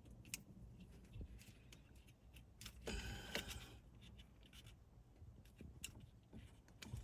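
Faint small clicks and scratchy rubbing of wiring and plastic as connector terminals are handled and pushed into a CAN bus STAR connector, with a louder rub about three seconds in.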